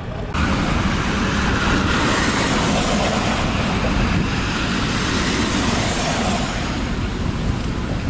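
Steady outdoor city noise: a continuous roar of road traffic, starting suddenly just after the start.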